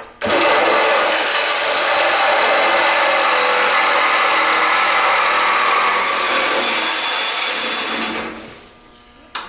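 Power cutting tool cutting through a steel truck frame rail, with cutting fluid spritzed onto the cut. It runs steadily for about eight seconds, then winds down near the end.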